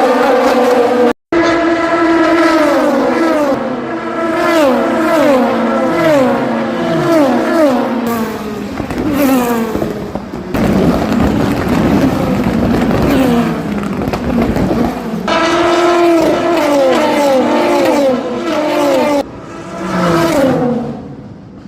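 Race car engines passing at speed, their note falling in repeated steps as the cars lift and downshift. Several cars go by in turn.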